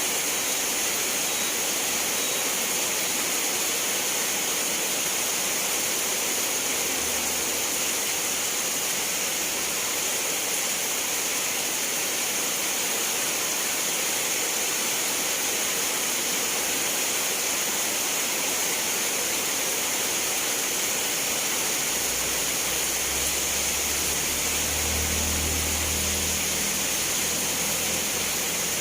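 Steady rain falling, a constant even hiss with no single drops standing out. A faint low rumble comes in briefly underneath twice, the longer one near the end.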